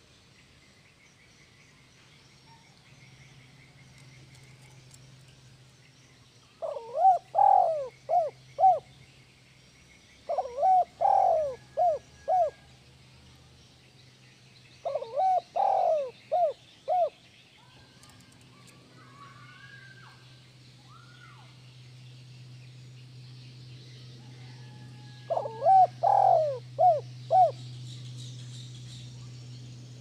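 Spotted dove cooing: four phrases of four or five short, quick coos each, a few seconds apart, with a longer pause before the last phrase.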